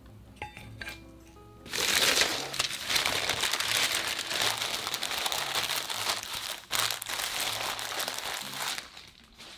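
Newspaper being handled and crumpled by hands: loud, dense paper rustling and crinkling that starts about two seconds in and carries on until near the end, with soft background music beneath.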